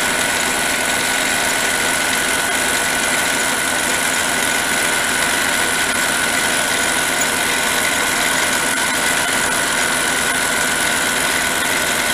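Harbor Freight mini lathe running steadily during a milling set-up, its motor and gear train giving an even mechanical hum with a constant high whine.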